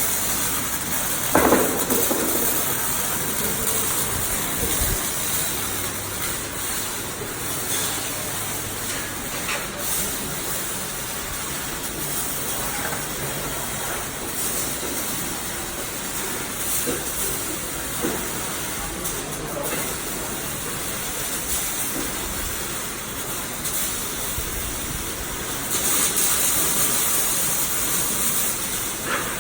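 Electric arc welding: a steady hissing crackle from the arc. There is a single clank about a second and a half in, and the hiss grows sharper near the end.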